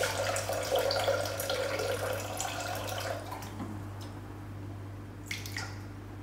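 Water pouring from a plastic jug into a Thermomix's steel mixing bowl as a steady splashing stream, weighed out for sugar syrup; the stream is strongest for the first three seconds, then thins.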